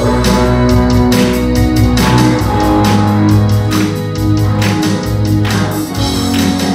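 Live worship band playing: electric guitar over sustained low bass and keyboard chords, with a steady beat of drum hits about twice a second.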